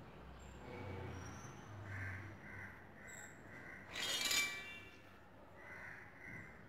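Birds calling repeatedly in short notes, with one loud, harsh call about four seconds in.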